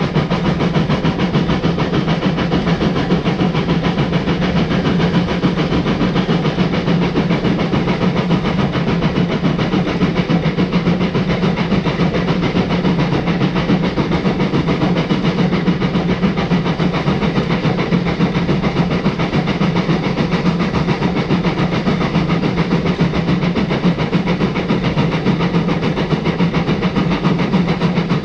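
Narrow-gauge steam train running along the line, with a steady rumble of wheels on the track and the locomotive working, heard from the front of the locomotive.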